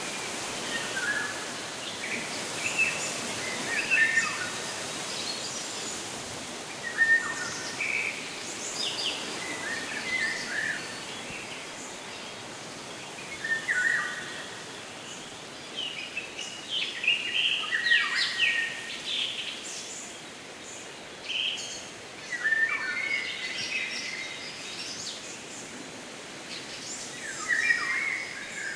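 Songbirds chirping and calling in short bursts, several overlapping, over a steady background hiss. The calls come every second or two and are busiest past the middle and near the end.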